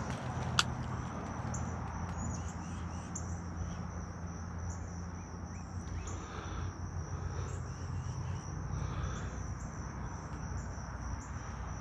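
Steady high-pitched drone of insects, with faint pulsing calls above it, over a low steady rumble. A single sharp click about half a second in.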